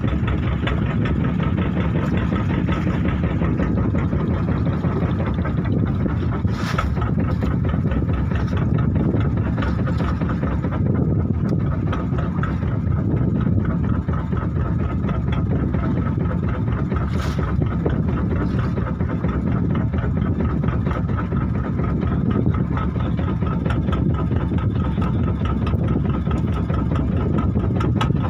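Small wooden fishing boat's engine running steadily while the boat is underway on the sea.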